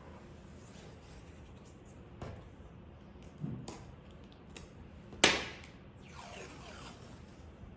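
Masking tape being handled and pulled from the roll: scattered scrapes and rustles, a sharp snap about five seconds in, then a longer stretch of tape peeling.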